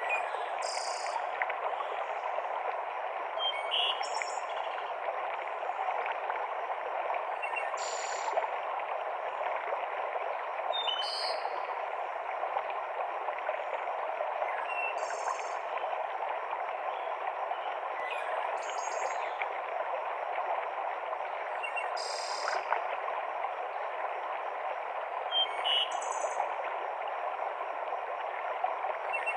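Mountain stream cascading over rocks, a steady rush of water. A bird gives short, high chirps about every three to four seconds.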